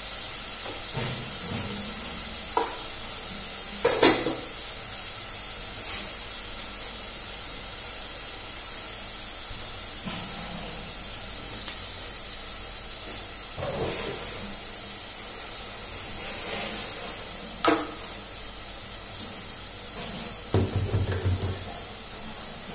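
Chopped onions and split green chillies frying in oil in an aluminium pot, a steady sizzle. Over it come a few sharp knocks and clinks of kitchen utensils, with a short cluster of louder knocks near the end.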